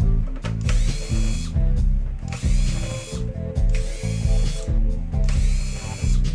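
Background music with a steady beat: a repeating riff about every 0.8 s, each with a rising sweep, over a bass line stepping between notes.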